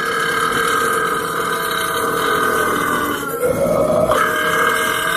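One long, drawn-out burp held as a single continuous belch for several seconds, its tone wavering and shifting about three seconds in.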